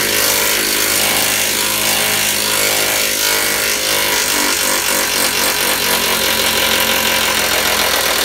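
Cordless power driver running steadily for about eight seconds, driving a 15 mm self-tapping bolt into the steel lower stud hole of a Ford Transit van body, cutting the threads as it goes.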